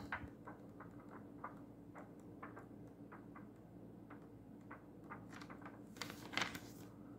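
Pages of a thick illustrated children's Bible being leafed through: faint light paper ticks and clicks, with a louder rustle of a page turning about six seconds in.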